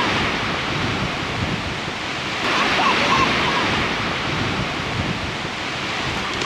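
Surf washing onto a sandy beach, with wind buffeting the microphone. The wash swells a little louder about two and a half seconds in.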